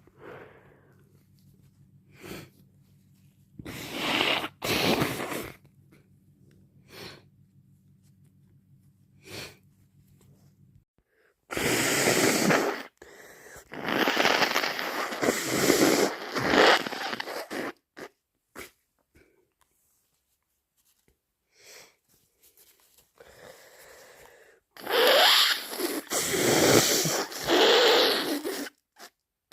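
A person with a head cold sniffling a few times, then blowing her congested nose hard into a tissue in two bouts of several wet, snotty blows each, the first about twelve seconds in and the second near the end.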